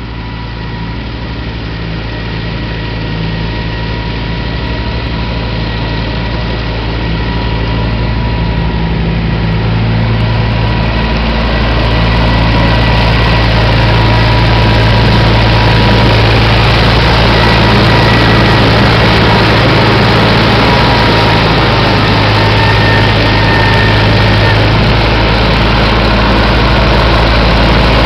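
Compact diesel tractor running steadily while towing a rotary finish mower across grass. It grows louder over the first dozen seconds as it approaches, then holds steady and loud close by.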